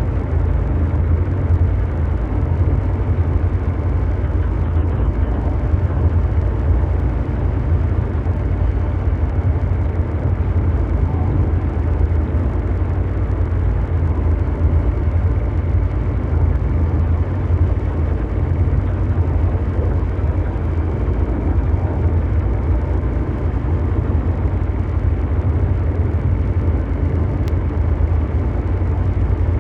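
Continuous mechanical drone noise: a deep, steady rumble with a softer hiss-like noise layered above it and a few faint held tones, unchanging throughout.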